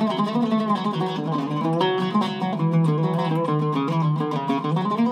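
Zeryab Iraqi-style oud with a cedar soundboard and mahogany back, played with a plectrum: a quick melodic run of picked notes over the low strings, with a rising slide near the end.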